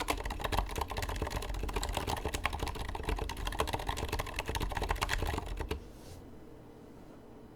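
Fast typing on a Leopold FC980M mechanical keyboard with Aqua Zilent silent tactile switches and MT3 keycaps: a dense run of soft, muted keystrokes. The typing stops about three-quarters of the way through, leaving a faint hiss.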